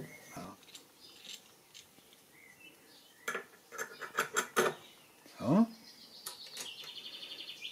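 Light metal clicks and clinks as the clamping parts of a saw-blade sharpening machine are handled and fitted by hand, with a short rising squeak midway and a fast, even ticking near the end.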